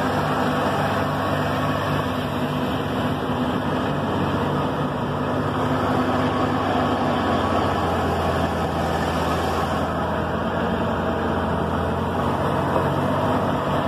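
Vehicle engine pulling up a steep gravel road, heard from inside the cab along with steady road noise. The engine note changes about seven seconds in.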